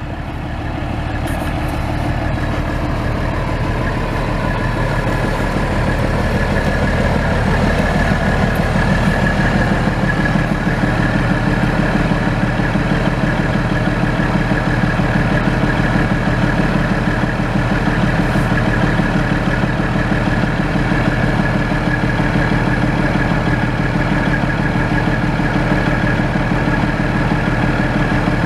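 A Caterpillar 3406 14.6-litre inline-six turbo diesel in a Peterbilt 379 semi truck, running at idle. It grows louder over the first several seconds, then holds a steady, even note.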